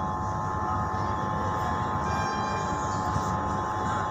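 Train running at a railway platform: a steady, loud rumble with a steady high whine over it.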